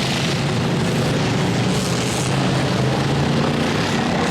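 Several demolition derby cars' engines running hard together, a loud steady drone.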